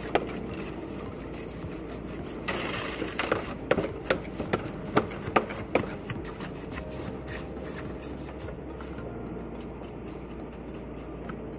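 Steel rods jabbed into freshly poured concrete, clinking against the steel reinforcement bars: from about two and a half seconds in, a run of a dozen or so sharp knocks over about three seconds. A steady low machine hum runs underneath.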